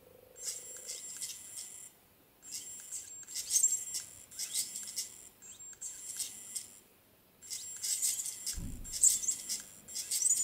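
Anki Cozmo toy robot making high electronic chirps and ticks in bursts about a second and a half long, with short pauses between them. A low thump comes about eight and a half seconds in.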